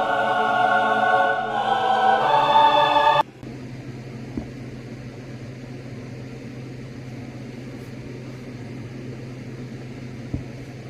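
Music with voices singing that cuts off suddenly about three seconds in. It leaves a quieter steady low hum with a faint click or two.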